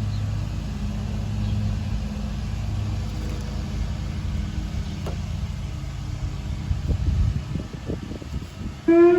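Lawnmower engine running steadily as a low drone. Just before the end a siren starts winding up: a loud tone with several overtones, rising in pitch.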